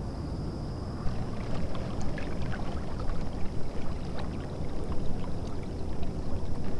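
A kayak moving through calm water, with water splashing and lapping at the hull and scattered small clicks and knocks from the boat.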